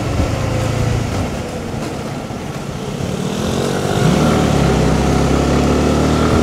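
Honda CBR150R's single-cylinder engine running under way. The revs rise about three seconds in, and it runs louder and steady after that.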